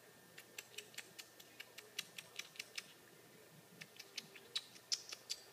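Faint light clicking of a small cat-toy ball as a kitten bats and rolls it: a run of even ticks about five a second for a couple of seconds, then a few more scattered clicks near the end.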